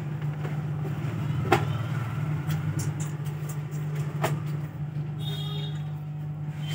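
Steady low hum, with a few light clicks and taps as a bare phone motherboard is handled on a workbench.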